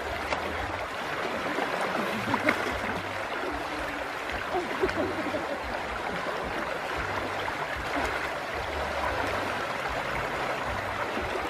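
Shallow river flowing over a stony bed: a steady rush of water, with a few small splashes as hands work through the water.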